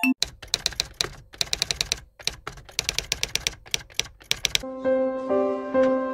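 Typing sound effect: quick runs of key clicks with short pauses, matching on-screen text being typed out. About four and a half seconds in the clicks stop and background music with held notes begins.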